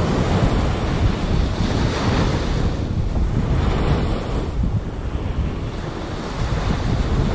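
Ocean surf breaking and washing up the beach, with wind buffeting the microphone; the surf swells louder about two seconds in.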